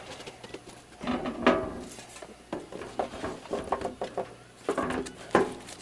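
Scattered knocks and clatter of a box and small light-fixture parts being handled and set down on a bench.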